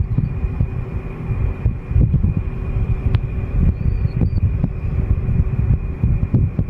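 Shih Tzu snoring in deep sleep: a continuous low, rough rumble, with a faint steady high-pitched whine behind it.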